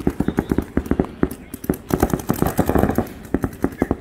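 Paintball markers firing in rapid strings, about ten shots a second.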